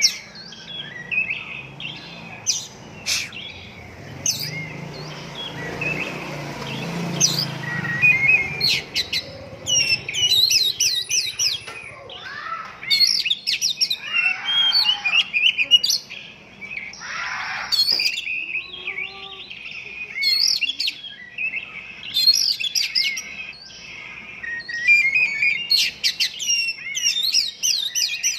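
Oriental magpie-robin (kacer) singing a long, varied song of sharp chirps, trills and whistled phrases, with short pauses between bursts.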